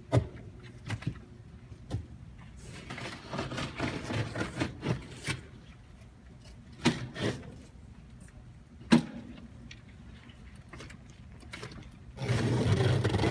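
Fabric being cut and trimmed on an acoustic panel with a utility knife, heard as scattered sharp knocks and clicks and a stretch of scraping. A louder low hum starts about a second before the end.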